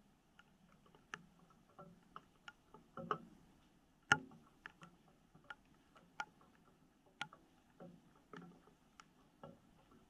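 Faint, irregular ticks and taps of scattered raindrops in a light drizzle, with one louder tap about four seconds in.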